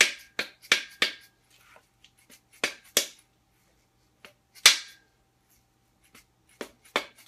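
A mallet rapping a main bearing cap on a Ford 302 V8's cast-iron block: about nine sharp knocks in twos and threes, a few leaving a short metallic ring. The tight cap is being bumped loose over its studs without turning the crankshaft, so the Plastigauge underneath stays undisturbed.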